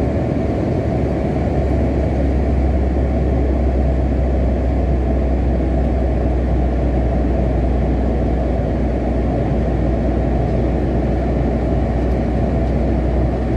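Steady cabin noise inside a VietJet Air Airbus A320-family jet in flight: the engines and the rush of air make an unchanging low drone.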